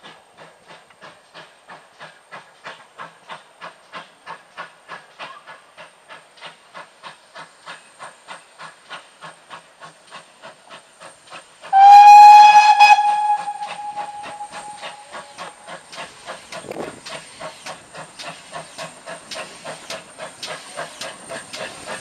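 Pannier tank steam locomotive working a train, its exhaust beating evenly about three times a second. About halfway through, the engine's steam whistle sounds, loud and held for a second or two before it fades, while the chuffing carries on.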